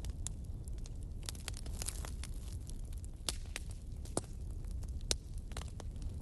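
Fire burning, with a steady low rumble and irregular sharp crackles and pops.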